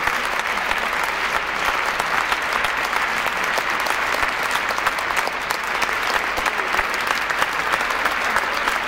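A large cinema audience giving a standing ovation: dense, steady applause from many hands clapping at once.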